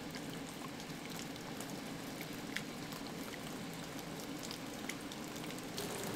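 Maple sap boiling hard in the pans of a small wood-fired evaporator: a steady bubbling hiss with small scattered pops.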